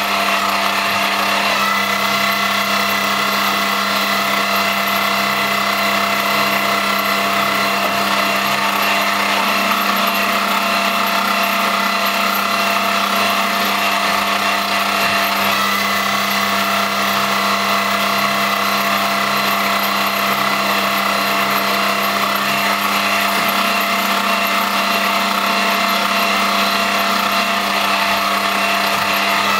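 Homemade CNC lathe on an X3 milling machine running steadily: a constant machine whine with several held tones over a mechanical rattle.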